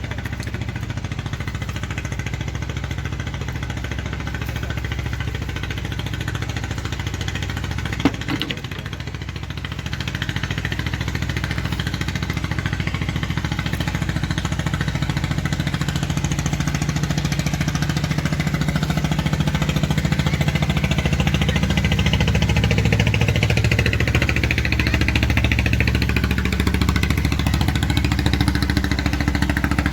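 A small engine running steadily with a fast, even pulse. It gets a little louder from about ten seconds in, and there is one sharp click about eight seconds in.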